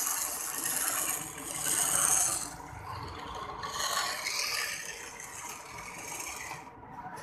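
Hand-cranked gear-driven bench grinder turning while a thin metal rod is held against its wheel: a scraping, hissing grind over the rattle of the gears. The grinding is loudest for the first two and a half seconds, then softer.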